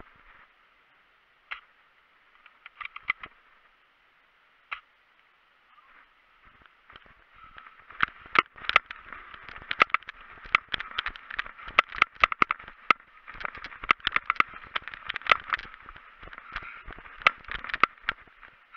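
A few scattered clicks, then from about seven seconds in a dense, irregular run of knocks, clicks and rustling: footsteps and gear rattling as a player moves quickly through grass and brush.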